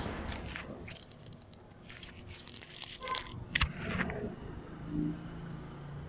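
Small scattered clicks, taps and light rattles of handling as metal multimeter probe tips are set down on a TV circuit board's contact pads, thickest between about one and four seconds in. A faint steady low hum underneath in the later part.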